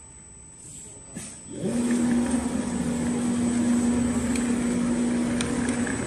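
Large-format CNC sewing machine starting up about a second and a half in: its motor sound rises briefly in pitch and then runs as a steady hum.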